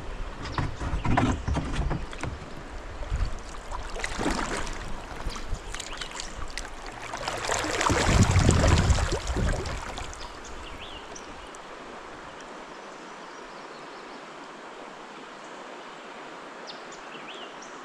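Kayak paddle strokes, the blades dipping and splashing in the river water, with a louder rush of water and low noise about eight seconds in. After about ten seconds the strokes stop and only a faint, steady water hiss remains as the kayak glides.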